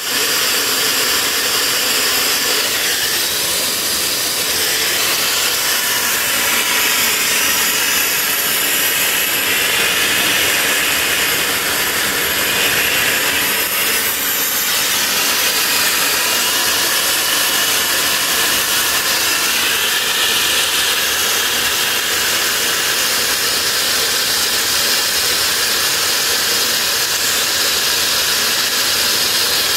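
Homemade turbojet built from a car turbocharger, running steadily: a loud, constant rushing hiss with a thin high whine over it.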